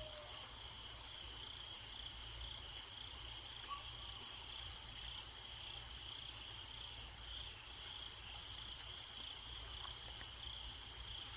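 Crickets chirping steadily in a fast, even pulse over a low background hum.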